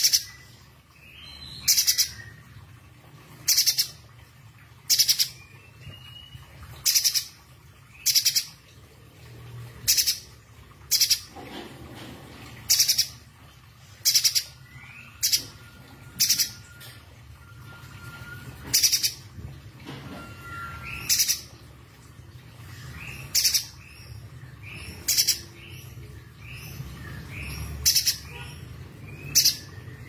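Caged spiderhunter calling: very short, sharp, high-pitched notes repeated about every second and a half, with fainter chirps between them.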